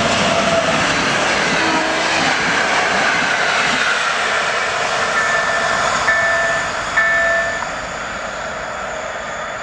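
PKP Intercity passenger train, hauled by an electric locomotive, passing at speed: a loud rush of wheels and air, with a few short high-pitched tones about midway. It fades as the train pulls away near the end.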